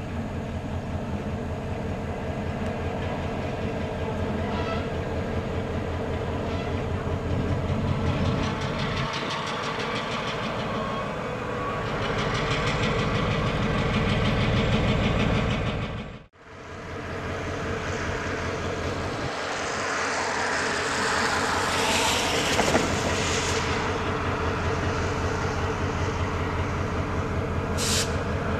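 Diesel switching locomotive's engine running with a steady, rhythmic beat, growing louder as the locomotive comes slowly closer. After a sudden break it runs on close by, with a brief high hiss near the end.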